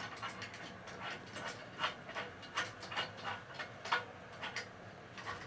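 A cat nosing and nibbling the plastic wrapping on a new bed frame, giving irregular soft crinkles and clicks, about two or three a second.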